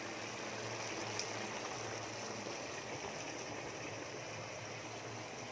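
A large pot of rice boiling hard, a steady bubbling of water at a rolling boil. The rice is being parboiled to about 70% done for biryani.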